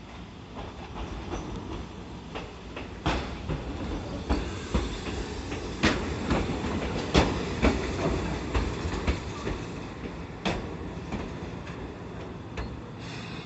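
Chichibu Railway local train running on the track, its wheels clacking over rail joints above a steady rumble. The clacks grow louder and come thickest about six to eight seconds in, then thin out.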